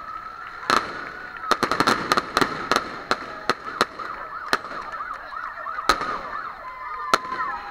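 Fireworks going off overhead: sharp bangs at irregular intervals, with a quick run of crackling reports about two seconds in. A wavering, warbling whistle-like tone runs beneath them.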